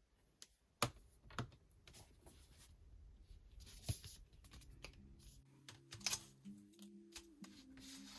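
Scattered light clicks and taps of small hard objects being handled, with several sharp ones in the first two seconds. Soft background music comes in about halfway through.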